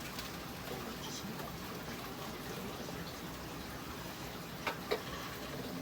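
Small items being set down in a refrigerator compartment: two quick light clicks close together near the end, over a steady low hiss.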